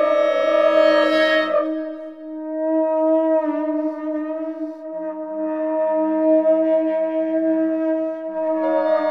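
Long held wind tones from clarinets, English horn, horn and conch trumpets with electronic processing: a steady low drone under other notes. A brighter tone fades out about a second and a half in, a lower note enters about five seconds in, and the bright tone comes back near the end.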